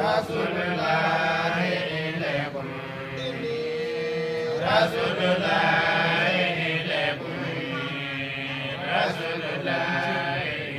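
Melodic Islamic religious chanting by male voice, long held notes in phrases of two to three seconds with short breaks between them.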